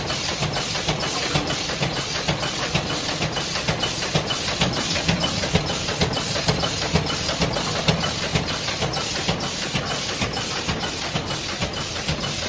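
Automatic child-resistant cap assembly and wadding-pressing machine running: a rapid, regular clicking of its mechanism over a continuous hiss.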